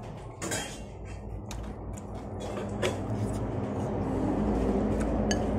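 A few sharp clicks from chopsticks and mouth sounds while noodles are eaten, over a low steady motor hum that grows louder in the second half.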